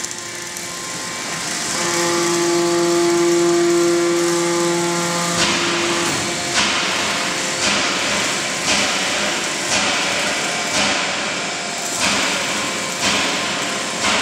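Factory machinery running: a steady humming whine for a few seconds, then regular hissing bursts about once a second.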